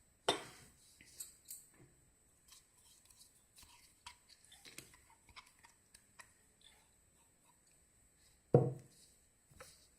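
Hands handling kitchen things while preparing ginger juice: scattered light clicks and taps, a sharp knock just after the start and a louder dull thump near the end.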